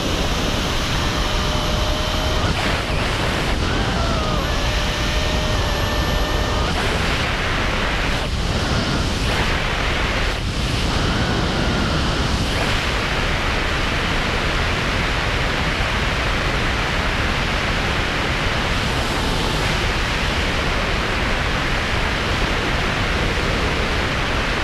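Steady rush of wind over a helmet camera's microphone during wingsuit freefall, with a few faint whistling tones that come and go in the first half.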